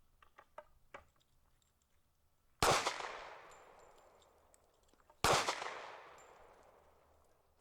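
Two gunshots about two and a half seconds apart, each sharp crack trailing off in a long echo. A few faint clicks come before the first shot.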